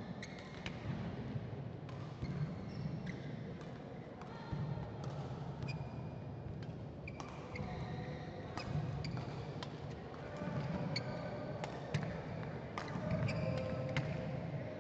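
Badminton rally: sharp, irregular hits of rackets on the shuttlecock, with short high squeaks of shoes on the synthetic court mat between them.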